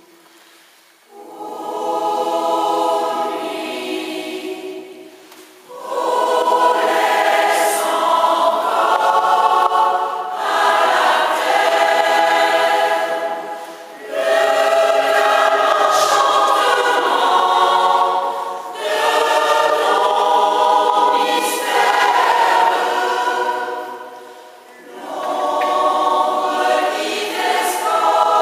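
Mixed choir of women's and men's voices singing together in sustained phrases, rising from near-quiet about a second in, with brief dips between phrases.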